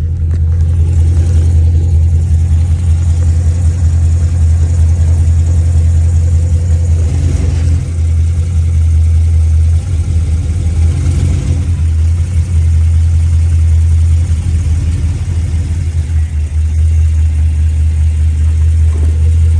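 2010 Camaro's 6.2 L V8, fitted with headers and high-flow cats, running with a loud, steady, deep exhaust rumble that dips briefly a few times.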